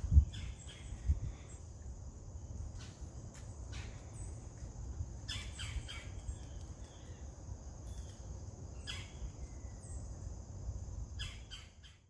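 Autumn woodland ambience: a steady high-pitched chorus of crickets, with short bird chirps scattered through it and a low rumble underneath. It fades out just before the end.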